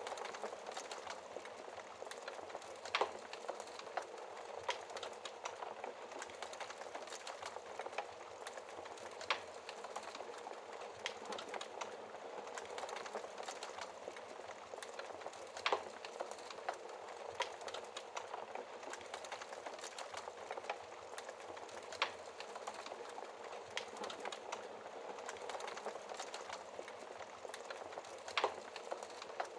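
Wood fire crackling steadily, with a dense patter of small crackles and about five louder sharp pops spaced roughly six seconds apart.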